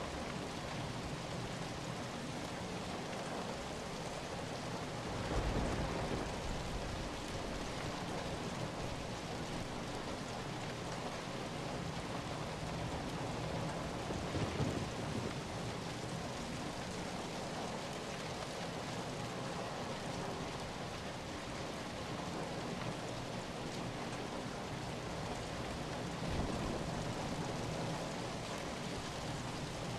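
Steady rain falling, an even hiss of water. Three brief swells with a low rumble come about five, fourteen and twenty-six seconds in.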